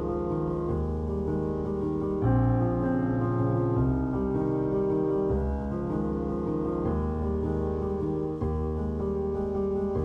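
Background music led by piano, with sustained chords that change every second or two.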